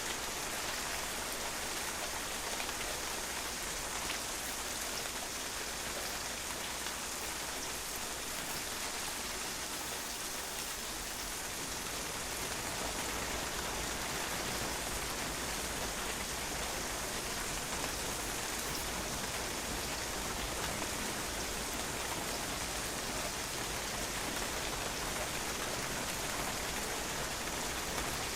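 Steady rain falling and drops bouncing off a patio, an even hiss with scattered fine patters of individual drops.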